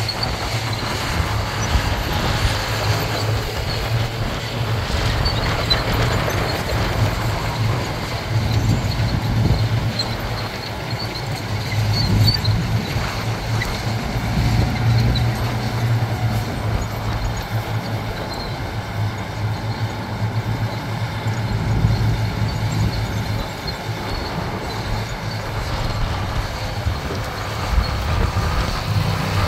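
Heavy diesel earthmoving machinery running steadily, a deep low engine drone that swells and eases a little, with scattered light clinks.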